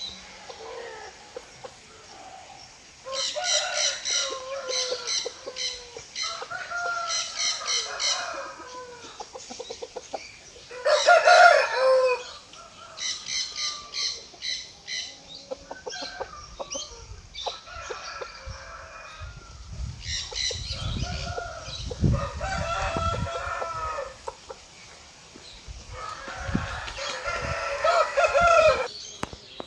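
Aseel rooster crowing several times, with clucking between the crows. The loudest crow comes about eleven seconds in.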